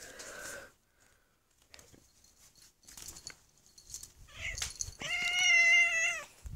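Domestic cat giving one long, level meow about five seconds in, after a few faint rustles; the cat is feisty.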